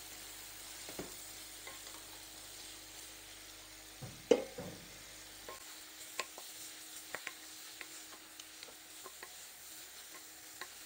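Sliced mushrooms sizzling gently in oil in a pot while a wooden spoon stirs them, with scattered light knocks of the spoon against the pot and one sharper knock about four seconds in.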